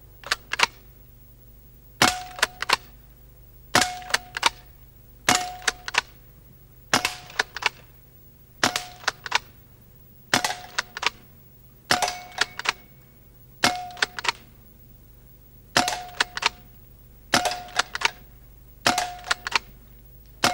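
Scan Mini Bullpup pre-charged pneumatic air rifle fired rapidly, twelve shots at an even pace of about one every 1.7 seconds. Each shot is followed by sharp clacks of the sliding-forend cocking action and a brief metallic ring.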